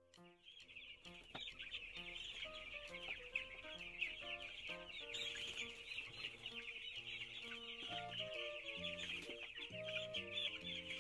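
A flock of young chickens peeping together in a dense, continuous high chorus as they are handled and lifted into a crate. Soft background music with piano-like notes plays underneath.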